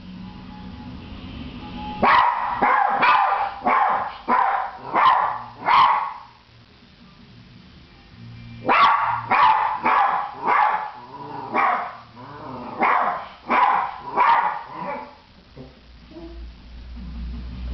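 A Maltese barking in two bouts of sharp, rapid barks, about two a second, with a short pause between them. It is the barking of a small dog left alone at home.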